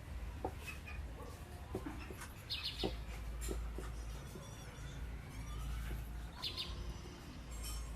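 Short bird chirps, twice in a cluster about two and a half seconds in and again about six and a half seconds in, over a steady low rumble, with scattered small clicks and taps.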